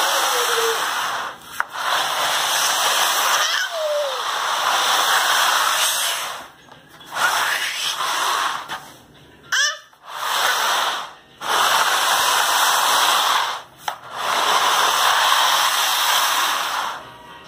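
Plastic laundry basket sliding across a tile floor: a rough scraping noise in repeated pushes of one to three seconds, with short pauses between them.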